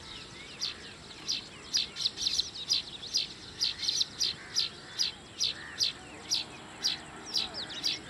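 Small birds chirping: a steady run of short, high chirps about two to three a second, with softer twittering between them.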